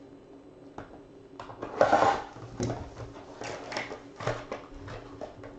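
A trading-card pack being slit open with a small cutter and the cards slid out: a series of short crinkling, scraping rustles of wrapper and card stock, the loudest about two seconds in.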